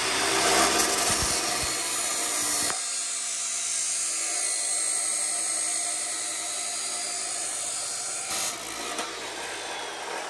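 Hercules abrasive chop saw cutting through square steel tubing, its motor and cut-off wheel whirring steadily as the wheel grinds through the metal. The lower part of the sound drops away abruptly about two and a half seconds in.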